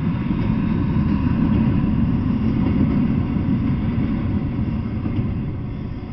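Double-stack intermodal freight train's well cars rolling past on the rails, a steady low rumble that fades away as the last car goes by near the end.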